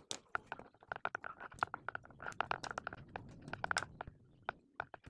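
Insulation being stripped from the ends of electrical wires with cutting pliers: a quick, irregular run of small clicks, snips and crunches.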